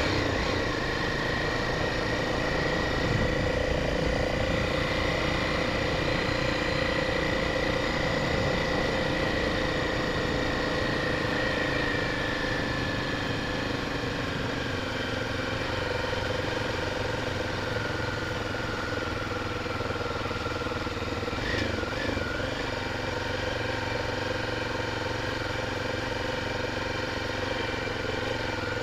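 Honda Tornado 250 motorcycle's single-cylinder four-stroke engine running steadily while riding, its note easing slightly lower partway through, with a brief wobble in pitch near the end.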